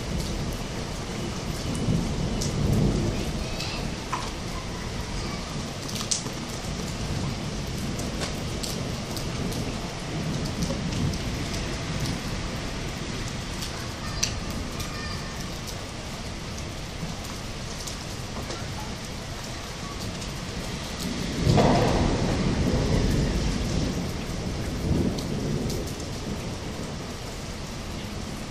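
Steady rain falling, with thunder rumbling: a low rumble about two to three seconds in, and a louder, longer roll of thunder about three-quarters of the way through that fades over a few seconds.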